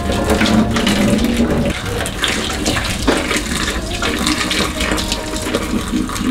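Hot water poured from a kettle in a steady thin stream into a stainless steel sink, splashing onto citrus peels in the drain basket. A song plays underneath.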